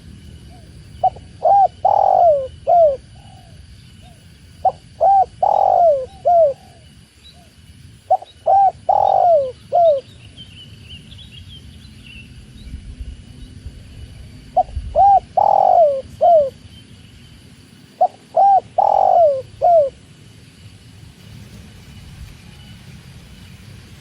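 Spotted dove (tekukur) cooing: five repeated coo phrases, each a few short coos around a longer, louder one, spaced about three and a half seconds apart with a longer pause in the middle. A smaller bird chirps faintly about halfway through.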